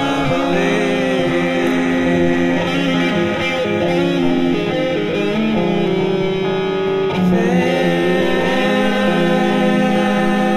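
Music with a singing voice over sustained instrumental notes, likely including guitar; a new chord comes in about seven seconds in.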